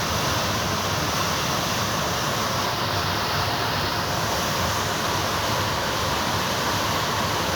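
Floodwater from a flash flood rushing in a torrent down a mountain road: a steady, unbroken rush.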